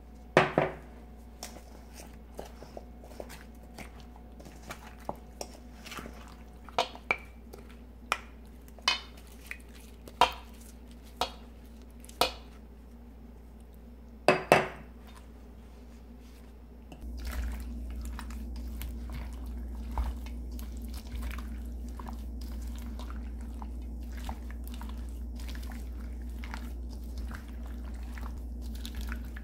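Metal spoon clinking and scraping against a stainless steel mixing bowl as red pepper seasoning paste is stirred into cubed radish for kkakdugi, with sharp clinks a second or so apart. About halfway through it gives way to a steady wet squishing as gloved hands toss the radish cubes in the paste.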